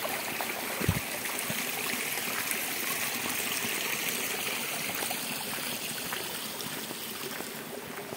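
Small woodland stream running steadily under a footbridge, a continuous trickling rush of water that grows a little fainter in the last few seconds. A single dull bump about a second in.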